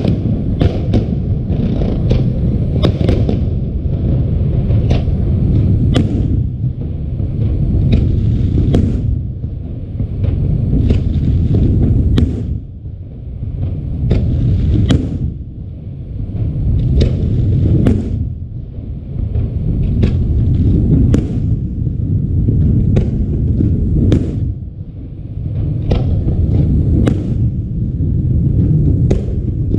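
Fireworks display: a steady run of sharp bangs and cracks, often several a second, over a continuous heavy low rumble that swells and eases every few seconds.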